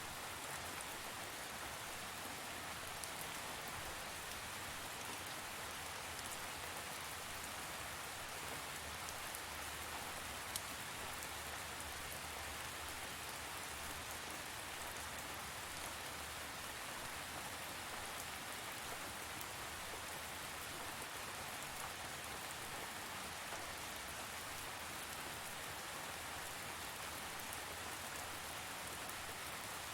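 Steady rain falling on a surface, an even hiss with fine drop ticks and one slightly sharper drop about ten seconds in.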